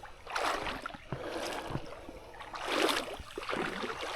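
Shallow creek water sloshing and splashing in three or four surges, the loudest about three seconds in, as someone wades through it.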